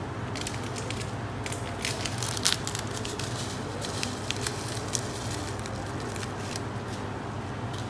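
Pot of chicken in coconut milk simmering on the stove, a steady hiss with scattered small crackles and pops, while seasoning granules are shaken in from a shaker.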